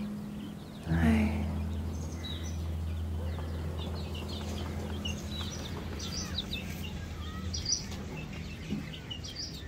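Young chickens peeping: many short, high chirps from several chicks, overlapping throughout, over a low steady hum that fades out near the end.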